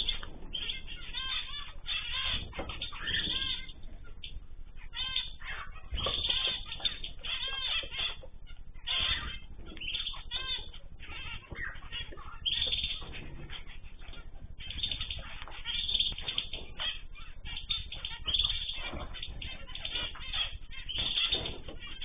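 Small aviary birds, zebra finches, canaries and cockatiels among them, chirping and calling in quick repeated runs, with short bursts of wing flutter as birds move between perches.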